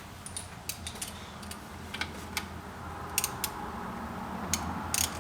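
Irregular light metallic clicks and clinks of sockets and hand tools being handled and fitted to a bolt, over a faint steady low hum.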